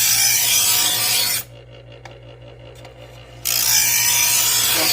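Electric knife sharpener grinding a kitchen knife blade as it is pulled through the coarse slot: two passes, each a loud rasping grind of about a second and a half, the first at the start and the second about three and a half seconds in.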